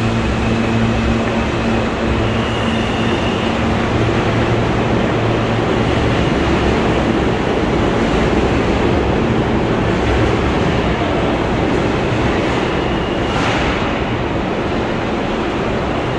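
New York City subway train running through the station, a loud, steady rumble with a low hum during the first few seconds.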